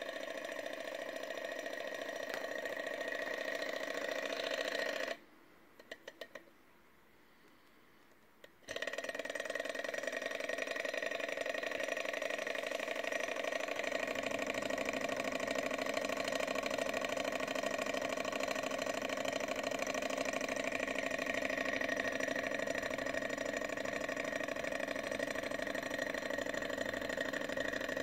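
Small model thermoacoustic (lag) engine running, heated at the hot end of its glass tube by a small spirit burner: a steady, fast mechanical whirr from its piston and flywheel, with a steady high-pitched whine. The sound cuts out for about three seconds around five seconds in, with a few faint clicks, then resumes.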